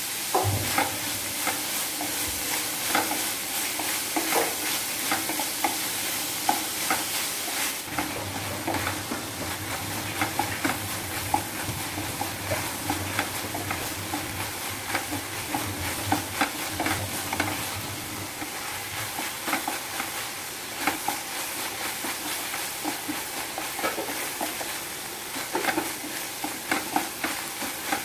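Chopped onions, green chillies and curry leaves sizzling in coconut oil in a pan while being stirred and sautéed until soft. A steady frying hiss runs under many light, irregular taps and scrapes against the pan.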